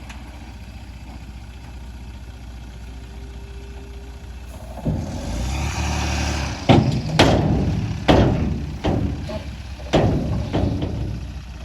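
Heavy diesel engine of construction machinery running steadily, then getting louder about five seconds in, with a series of about six sharp metallic bangs.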